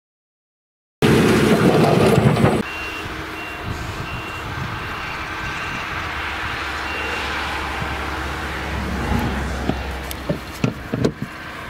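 Claas Jaguar 970 forage harvester's MAN V8 engine running steadily under load while chopping sorghum. The sound starts abruptly about a second in and is loudest for the first moment, then settles into a steady drone. A high beep repeats for several seconds, and a few sharp knocks come near the end.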